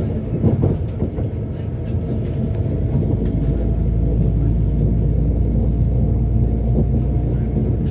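Train running along the track, with a steady low rumble and a few faint held tones above it.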